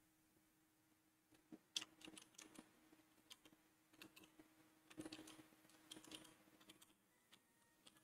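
Faint typing on a computer keyboard: irregular key clicks that start after about a second and a half of quiet and die away about a second before the end.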